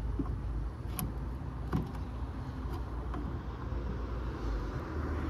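A few light plastic clicks from a fuse puller working in a car's underhood fuse box, over a steady low rumble.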